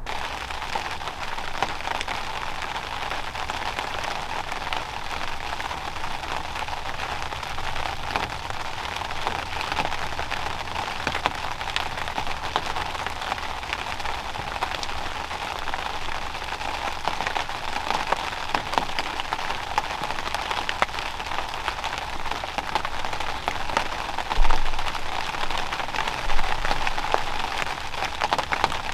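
Steady rain pattering down, a dense patter of many individual drops. There are two short low thumps near the end.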